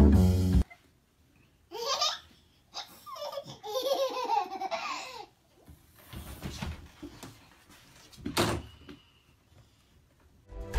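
A toddler laughing in high-pitched peals for a few seconds, after a short burst of music cuts off. Softer sounds follow, with a brief thump later on.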